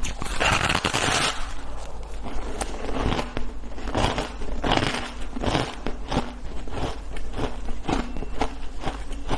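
A block of pressed shaved ice being bitten and chewed: a dense crunch near the start, then many quick, irregular crunches and crackles as the ice breaks up in the mouth.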